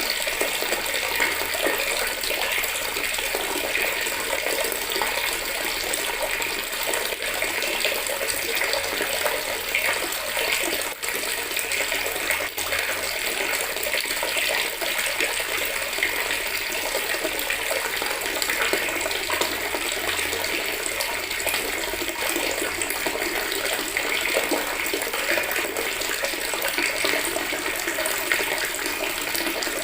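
Water running steadily from a tap into a plastic bucket, a continuous splashing and gushing that holds even throughout.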